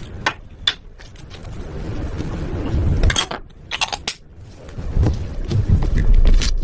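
Slime being mixed and squished by hand, with a low handling rumble and several sharp clicks, a cluster of them about three seconds in.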